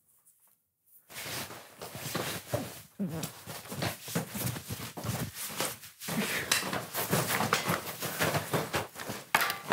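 A man grunting and straining as he wrestles his way out of a tight jacket, with cloth rustling throughout; it starts about a second in.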